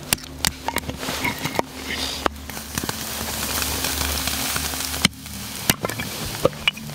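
Hatchet splitting kindling: a series of sharp, irregular knocks as the blade bites into the wood, over the steady crackle and rush of a wood fire burning in a small stove.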